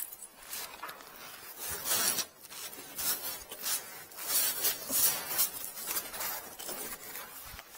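Irregular rustling and scraping close to the microphone, like clothing brushing against it as the camera is moved along the pipe.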